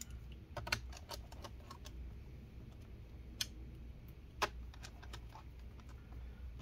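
Small precision screwdriver driving tiny screws into a laptop's plastic bottom cover: soft, irregular clicks and ticks of the bit and screws, with a few sharper clicks about a second in and past the middle.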